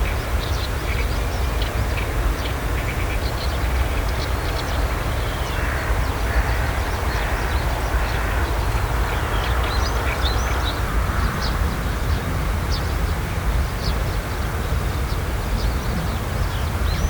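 Outdoor ambience: a steady low rumble with many short, high bird chirps over it, and a few longer, lower calls between about five and eight seconds in.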